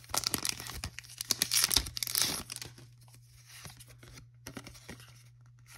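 Foil Pokémon booster pack wrapper being torn open and crinkled by hand, with dense crackling tears for the first two and a half seconds, then quieter scattered crinkles.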